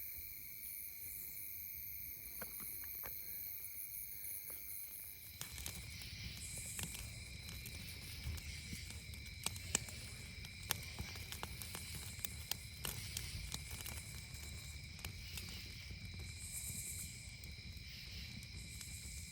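Crickets trilling steadily in an evening insect chorus. About five seconds in, a low rustling rumble and scattered clicks of movement join it.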